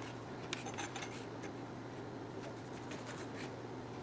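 Chef's knife slicing through sausages and striking a thin plastic cutting board: a quiet, irregular series of short cuts and scrapes.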